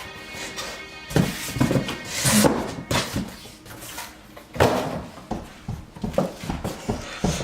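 Projector packaging being handled: irregular rustles and thumps of cardboard and packing material as the unit is unpacked.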